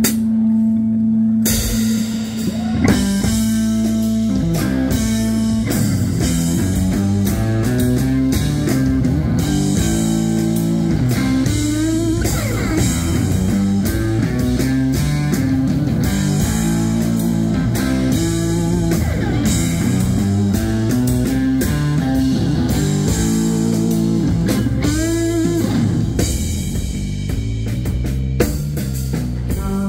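Live rock band: an amplified electric guitar playing over a drum kit, holding one low note for the first couple of seconds and then breaking into a busy run of changing notes.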